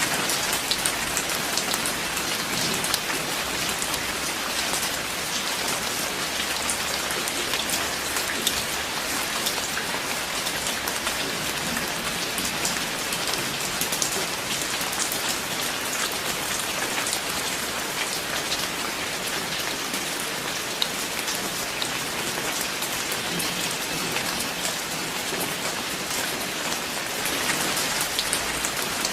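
Steady, dense rainfall: a continuous hiss of drops with many small individual drop ticks.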